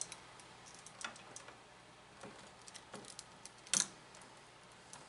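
Faint, scattered clicks and light rattling as a duplex receptacle with its metal mounting strap and copper wires is handled, with one sharper click about four seconds in.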